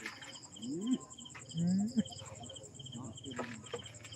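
Crickets chirping at night in fast, evenly repeated pulse trains, with a few short low calls that rise in pitch; the loudest comes about a second and a half in.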